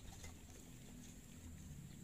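Near silence: faint, steady outdoor background with a thin high hiss and a low rumble.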